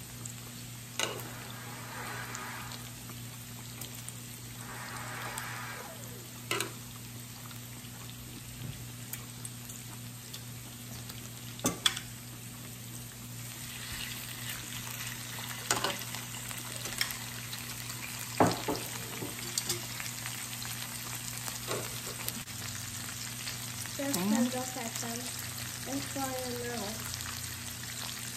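Pork and spam sizzling on an electric raclette grill, a steady frying hiss that grows fuller about halfway through, once a raw slice of pork shoulder is laid on the hot grill plate. Occasional sharp clicks and knocks of utensils against the grill.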